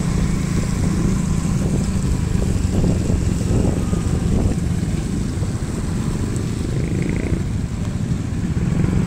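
Road traffic: motor scooters passing on a wet road, over a steady low engine hum.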